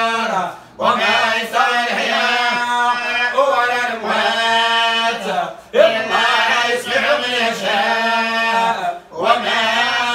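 Men's voices chanting religious verses together in unison, in long drawn-out melodic phrases with three short breaks for breath.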